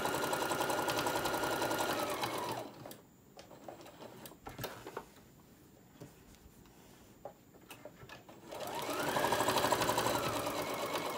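Singer Modern Quilter electric sewing machine stitching a seam. It runs steadily for nearly three seconds and stops; a few light clicks follow while the fabric is handled. Near the end it speeds up again and stitches for about three seconds.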